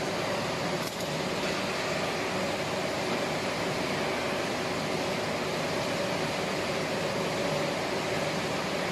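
Steady mechanical hum and whir of machinery running, with a faint held tone over an even rushing noise.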